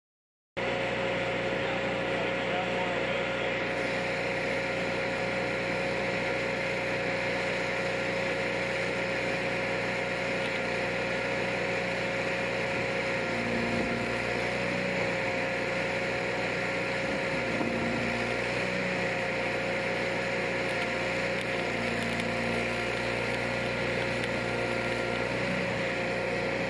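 Stick welding: the arc sizzling steadily, over the drone of an engine running at a constant speed, as from an engine-driven welder or generator.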